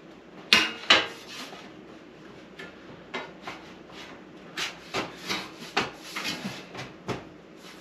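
Steel backsplash and side wind-guard panels of a two-burner gas camp stove being fitted onto its frame: two sharp metal knocks about half a second and a second in, then a run of lighter clicks, rattles and scraping as the panels are settled into place.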